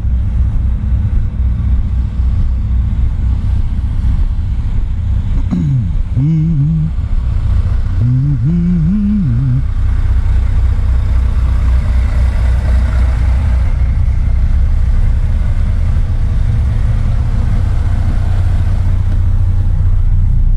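Diesel semi truck engine idling with a steady low rumble. A short wavering pitched sound rises and falls twice, around six and nine seconds in.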